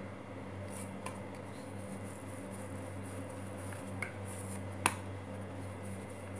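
Hands pressing and patting a stuffed ball of paratha dough flat on a wooden board, with a few small clicks and one sharp click about five seconds in, over a steady low hum.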